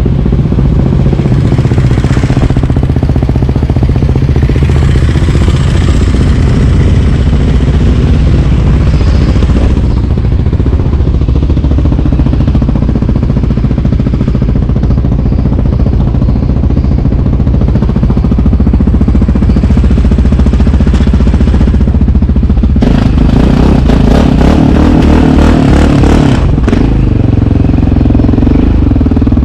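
Single-cylinder four-stroke sport ATV engine running under way, close to the microphone. About 23 seconds in it gets louder and rougher.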